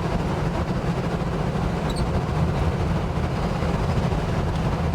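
Holden HK sedan cruising at a steady speed: a constant low engine hum with tyre and road noise, heard from inside the car.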